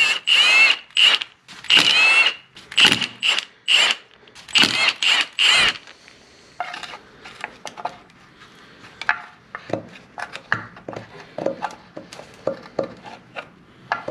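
Milwaukee cordless impact wrench hammering in about seven short bursts over the first six seconds, undoing the coolant tube bolts. After that come scattered light metal clicks and knocks as the tube is worked loose by hand.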